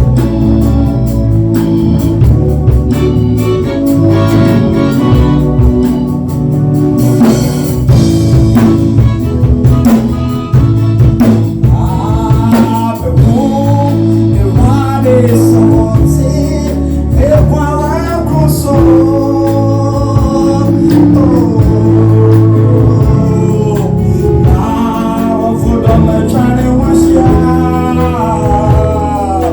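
Gospel music: a band playing with a singing voice, the sung melody standing out more clearly from about halfway through.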